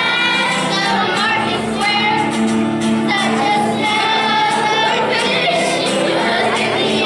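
A class of children singing a song together to acoustic guitar accompaniment, with the hall's echo.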